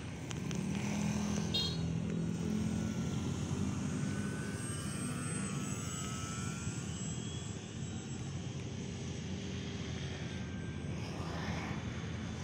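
Radio-controlled Maule scale model airplane flying overhead: a steady motor-and-propeller drone, louder in the first few seconds, whose pitch slides down around five seconds in as the plane passes.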